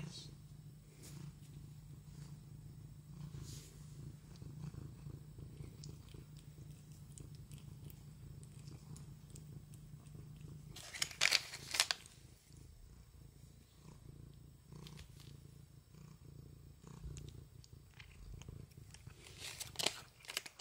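Cat purring steadily and softly, close by. The purr is strongest over the first half and weakens after about twelve seconds, with a couple of short noisy sounds around eleven seconds in.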